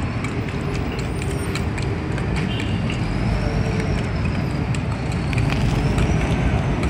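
Steady rumble of street traffic, with light clicks and scrapes of a metal spoon tossing shredded green mango salad in a stainless steel bowl.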